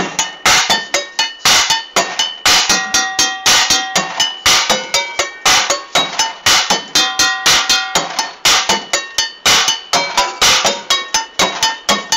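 Street drummer beating drumsticks on the bottoms of old cooking pots in a fast, driving rhythm of metallic strikes, with each pot ringing briefly at its own pitch.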